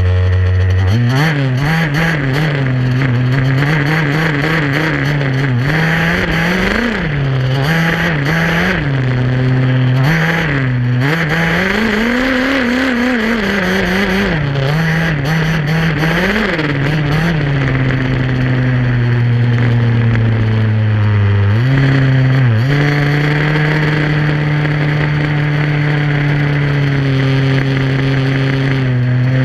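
HPI Baja SS buggy's small gas two-stroke engine, heard close up. It idles for about a second, then revs up and down in quick throttle blips, and holds a steady higher speed through the second half with one brief drop about 22 seconds in.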